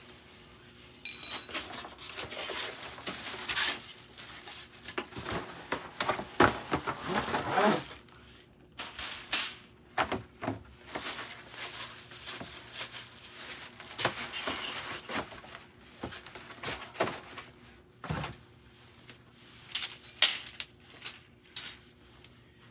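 Parts of a black steel mesh letter-tray organizer being unpacked and handled: plastic packaging rustling and metal frame pieces knocking and clinking, in scattered bursts that are busiest in the first several seconds.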